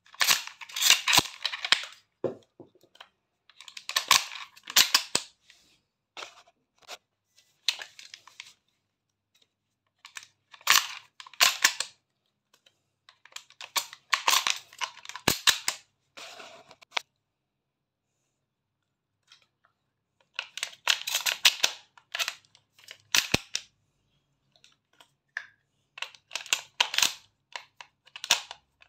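Shotgun shells being loaded by hand into a pump-action shotgun's tube magazine: about seven short runs of sharp clicks and snaps, each a second or two long, with pauses between them.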